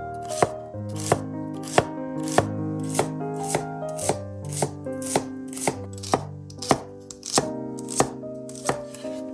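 Chef's knife chopping celery stalks on a wooden cutting board in a steady rhythm, about fifteen crisp chops at roughly one every 0.6 s, with background music under it.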